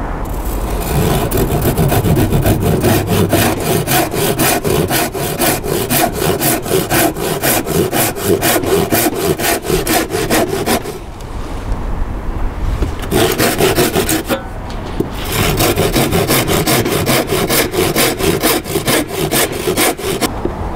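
Handsaw cutting across a timber batten in steady, rhythmic back-and-forth strokes, making a series of relief cuts down to a marked depth. The sawing stops for about two seconds near the middle, then starts again on the next cut.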